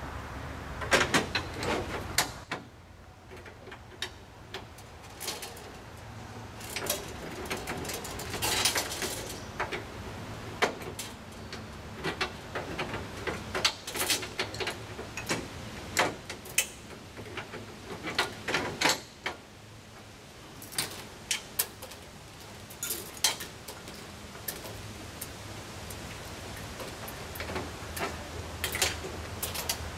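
Irregular clicks, knocks and scrapes of air-brake hoses and fittings being handled and worked into place on a semi truck's metal deck plate, over a low steady hum.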